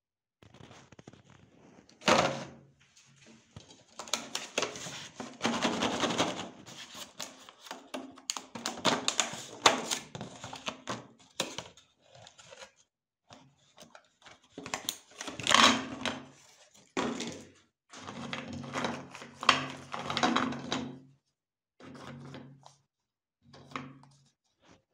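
Hands handling a clear plastic clamshell tray of cookies and taking the cookies out: the plastic crackles and clicks, with knocks on the table, in stop-start bursts.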